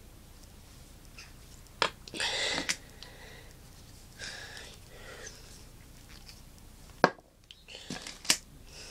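Handling noises from a small bottle of fly-tying varnish: a few sharp clicks, near 2 s, 7 s and 8 s in, and a short scratchy rustle just after the first click, with fainter fiddling sounds between them.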